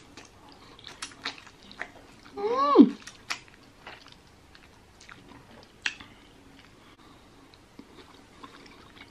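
Close-up eating sounds of a woman slurping and chewing spicy instant noodles, with wet mouth clicks and smacks scattered throughout. About two and a half seconds in, a short hummed 'mm' rises and then falls in pitch; it is the loudest sound.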